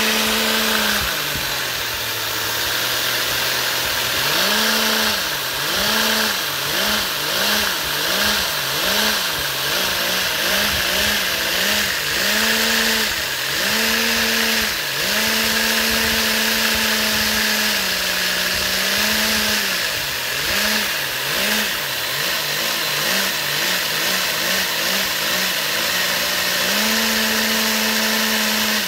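Lego single-piston vacuum-powered motor with a belt-driven 3D-printed roots-style supercharger, revved up and down on its throttle: a pitched running hum that rises and falls in repeated blips, some about one a second and some in quick runs, held high for a few seconds in between, over a steady hiss. The supercharger's sound comes up most as it revs.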